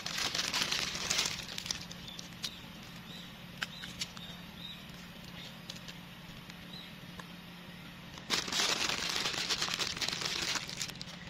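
Plastic candy wrapping crinkling and rustling as it is handled, in two spells with scattered clicks between them.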